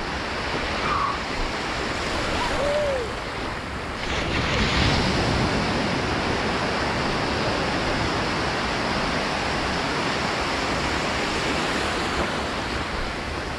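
Ocean surf breaking and washing up a sandy beach in a steady rush, with wind on the microphone; the wash swells a little about four to five seconds in.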